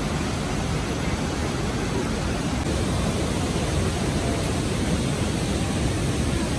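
Steady rushing roar of a large waterfall and rapids, an even noise without let-up.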